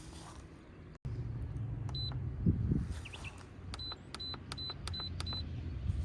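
Short high electronic beeps, each with a button click, about six in all and coming in quicker succession in the second half, over a low steady hum.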